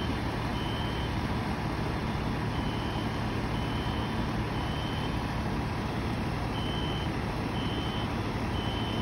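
Steady drone of street-works machinery running: a portable blower pushing air through a flexible duct, with engine hum underneath. A short high electronic beep repeats about once a second, with a few gaps, like a vehicle's reversing alarm.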